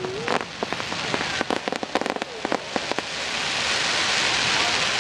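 Fireworks crackling: many sharp pops in quick succession for about three seconds, then a dense crackling hiss that swells and eases off near the end.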